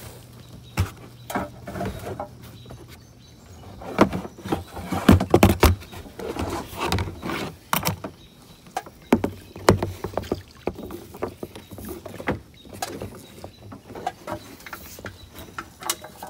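Kayak paddling: paddle strokes in the water with irregular clicks and knocks, a cluster of louder knocks about four to six seconds in.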